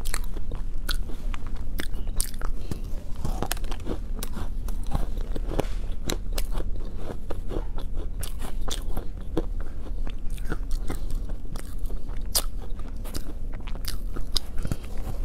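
A person biting and chewing crunchy chocolate chip cookies, with many sharp, irregular crunches throughout.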